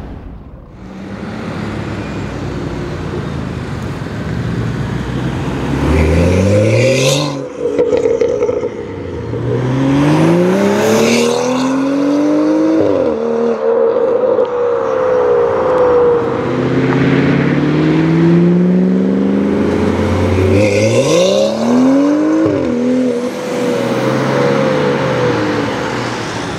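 BMW M235i's turbocharged straight-six through an aftermarket Armytrix exhaust, accelerating hard several times. The engine note climbs in pitch through each gear and drops at each upshift.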